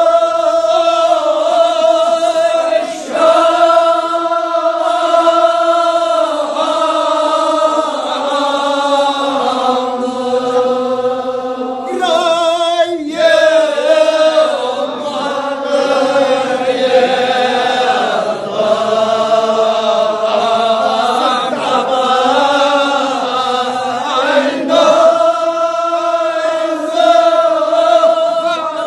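A group of men chanting a Kashmiri marsiya, the Shia elegy of mourning, in unison without accompaniment. They hold long steady notes and shift pitch from phrase to phrase, with a short break about twelve seconds in.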